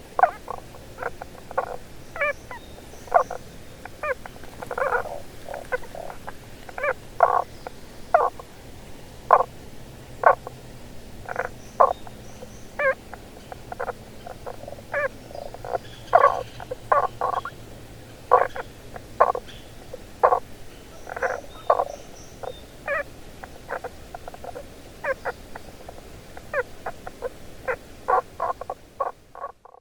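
A male Tago's brown frog calling from under the ground beneath stones: short low croaks repeated throughout at irregular intervals, sometimes several in quick succession. It is an advertisement call to attract females.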